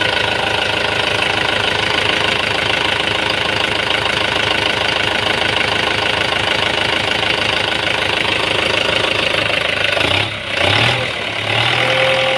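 Kubota M9540 tractor's freshly overhauled four-cylinder diesel engine running steadily after its rebuild. About ten seconds in the sound dips briefly, then changes to a lower, steadier hum.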